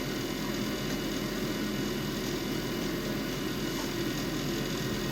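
Steady hum with an even hiss underneath, unchanging throughout, with no distinct sound standing out.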